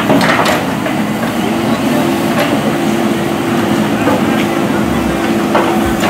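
JCB 3DX backhoe loader's diesel engine running under load with a steady hum while the backhoe arm works, with scattered knocks and clatter of the bucket against soil and debris, the loudest near the end.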